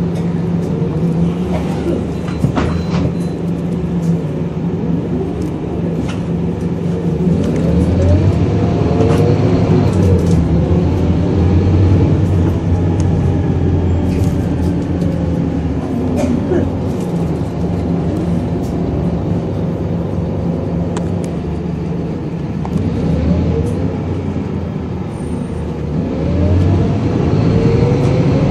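Scania N230UB bus's five-cylinder diesel engine heard from inside the saloon while the bus drives along, its pitch rising and falling through repeated acceleration and gear changes. It pulls harder and louder about eight seconds in, and again near the end.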